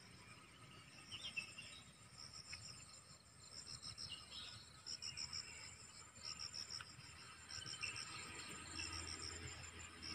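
Crickets chirping faintly: short trains of about four quick pulses, repeating roughly every second, over a steady high-pitched insect drone.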